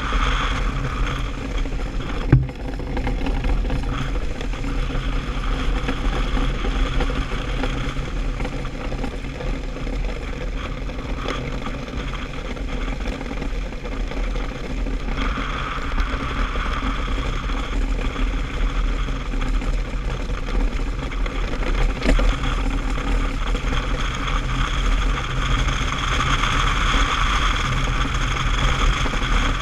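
DN iceboat's steel runners hissing and rumbling across smooth lake ice while under sail. The hiss swells about halfway through and again near the end, as the boat picks up speed.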